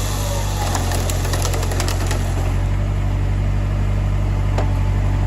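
Heavy forestry machine's engine running steadily with a deep hum, and a few sharp cracks or knocks over it, most about a second or two in and one more near the end.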